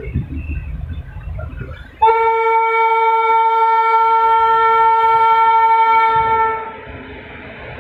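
Indian Railways locomotive horn sounding one long, steady blast of about four and a half seconds, starting about two seconds in. Before it the low rumble of the running train can be heard, and after it a rushing noise.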